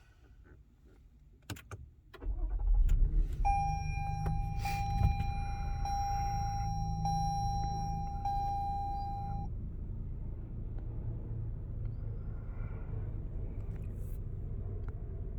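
2021 Toyota Highlander's V6 engine starting about two seconds in, then settling into a steady idle. Over the idle, a dashboard chime holds a steady tone, broken about once a second, for roughly six seconds.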